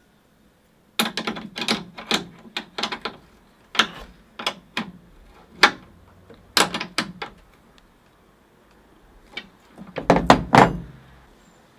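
Spanner tightening a stud on a pickup's tailgate hinge: a string of separate sharp metal clinks and knocks as the spanner is worked and refitted on the nut, with a louder cluster of knocks and a thud near the end.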